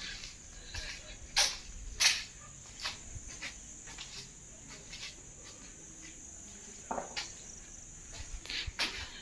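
Crickets trilling steadily at a high pitch, with scattered sharp clicks and knocks; the loudest knocks come about one and a half and two seconds in.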